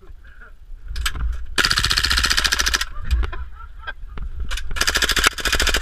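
Airsoft gun firing on full auto in two long bursts of rapid, even clicks, each a little over a second long, the second near the end, with a few single clicks between them.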